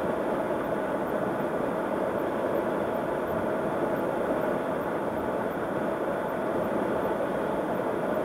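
Steady road noise of a car cruising on a concrete highway, heard from inside the cabin: even tyre roar on the pavement with the engine's hum beneath it.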